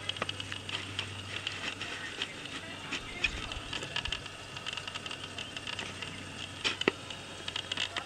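Outdoor ambience: scattered small clicks and crunches, like footsteps and handling on gravelly ground, over a faint steady high hum, with a couple of sharper clicks near the end.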